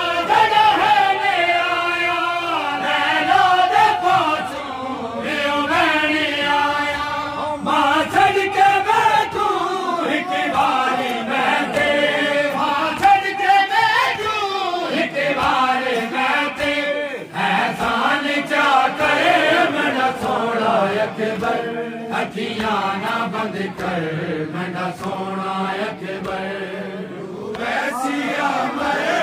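A group of men chanting a Shia nauha (lament) in unison behind a lead reciter on a microphone. For much of it there are regular sharp slaps, about one a second, from chest-beating (matam).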